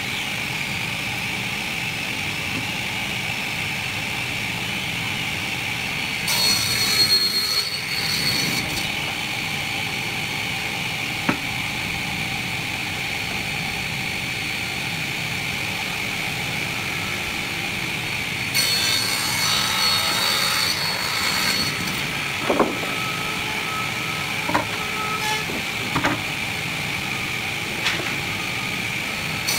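Sliding-table circular saw running steadily with a constant whine, cutting through a wooden panel twice: about six seconds in and again about nineteen seconds in. A few sharp knocks come later, as boards are handled on the table.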